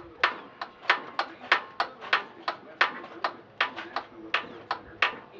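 Ratchet wrench clicking steadily, about three sharp clicks a second.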